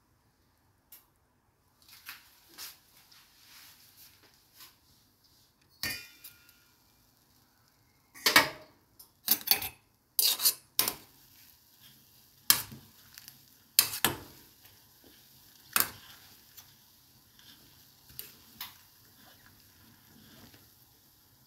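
A metal fork knocking and clinking against a stainless steel pot, in irregular sharp strikes that are loudest from about eight to sixteen seconds in, over the faint steady hiss of the pot boiling.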